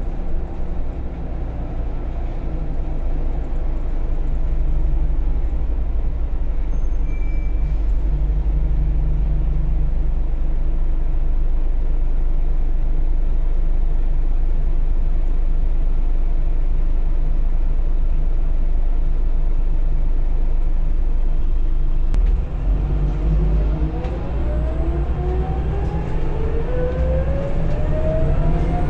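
Scania L94UB bus heard from inside the saloon while driving: a steady, loud low engine and road rumble. A little over twenty seconds in the sound dips briefly, then a whine climbs steadily in pitch as the bus picks up speed.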